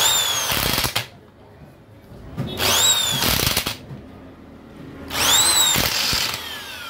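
Corded electric impact wrench driving the crankcase bolts of a two-stroke outboard powerhead: three bursts of about a second each, each a motor whine that rises and then falls, with the rapid hammering of the impact mechanism.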